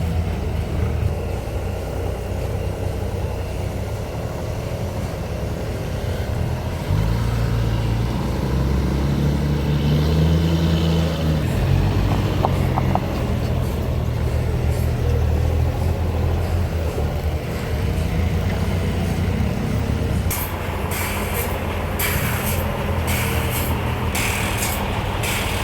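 A heavy engine running steadily at a low hum, louder from about seven seconds in. Near the end comes a run of short hissing bursts.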